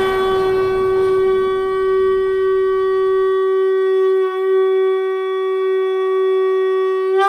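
Conch shell (shankha) blown in one long, steady note, with a brief dip about four seconds in.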